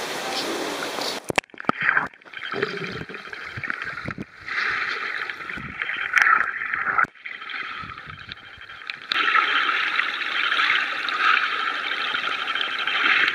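Water churning at the surface of a spring-fed pool, then, about a second in, the muffled underwater sound of bubbles and stirred water. It comes in uneven surges and grows louder and steadier from about nine seconds in.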